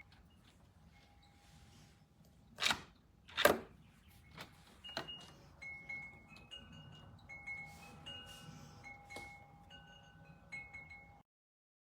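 Two sharp clicks, then a soft run of high chime-like notes stepping between a few pitches, cutting off abruptly near the end.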